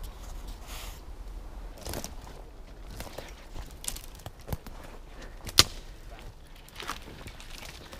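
Footsteps through dry undergrowth and brush, with scattered twig cracks, and a single sharp axe strike on a hazel sapling a little past halfway.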